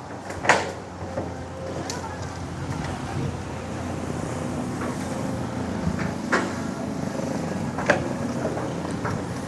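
Excavator's diesel engine running steadily under work, with a few sharp knocks. The loudest knock comes about half a second in, and others follow at intervals.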